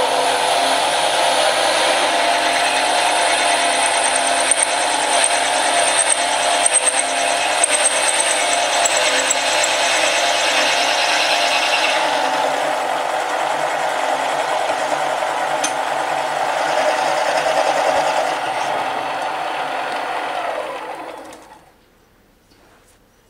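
Mini lathe running while a large twist drill in the tailstock drills into a spinning 50 mm cast iron bar: a steady whine from the machine mixed with the scraping noise of the cut. Near the end the lathe is switched off and runs down to a stop within about a second.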